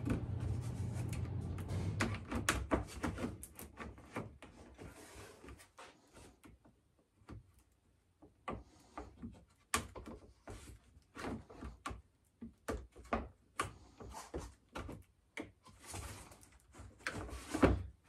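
Plastic slot-car track sections being handled and fitted together: a run of irregular clicks and clacks, with a louder knock near the end.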